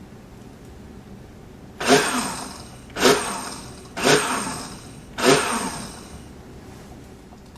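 Electric blender pulsed four times, about a second apart: each pulse starts abruptly and the motor's pitch falls as it winds down.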